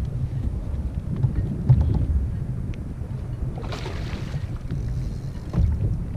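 Wind buffeting the microphone over water lapping at a kayak, with a splash about four seconds in as a hooked bluefish thrashes at the surface.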